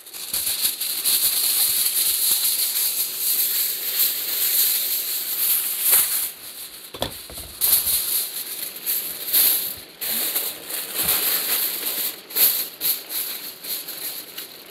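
Aluminium foil crinkling and rustling as it is pressed down and tucked around the rim of a large paella pan. It goes on unevenly, with sharper crackles here and there.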